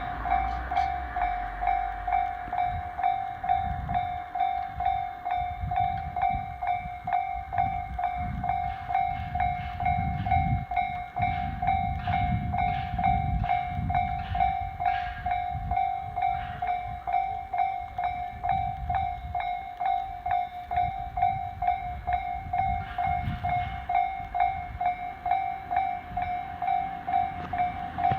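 Japanese level-crossing warning bell ringing steadily at about two strokes a second. A Tobu Railway train runs over the crossing meanwhile, its low rumble and wheel clicks rising a few seconds in and fading near the end.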